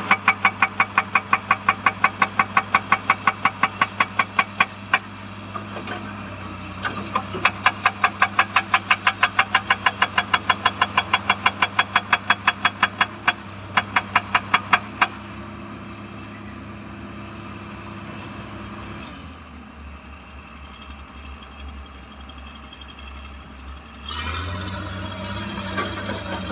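Hydraulic rock breaker on a Komatsu excavator hammering rapidly at about seven blows a second, in two runs of several seconds with a short break between, over the steady drone of the diesel engine. The hammering then stops and the engine runs on alone, falling lower for a few seconds and then rising again near the end.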